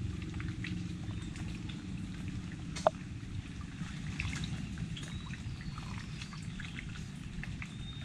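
Water trickling and splashing, with scattered small clicks and one sharp click about three seconds in.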